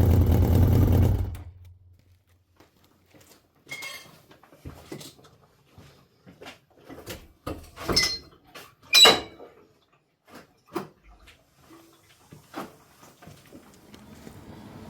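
Yamaha XJ900S Diversion's air-cooled inline-four idling, then cut off suddenly about a second in. Scattered clicks and sharp metallic knocks follow, the loudest two close together about halfway through.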